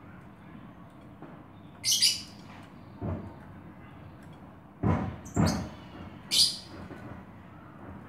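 A caged Oriental magpie-robin (kacer) gives two short harsh calls, about two seconds in and again past six seconds, with a few thumps and flutters in between as it hops about its cage.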